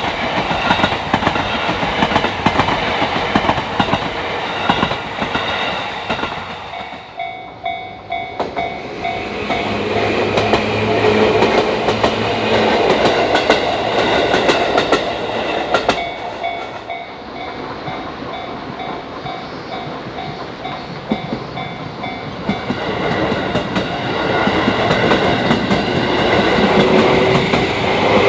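Electric train running past a railway level crossing, its wheels clattering over the rail joints. During parts of it the crossing's warning bell rings in quick repeated dings.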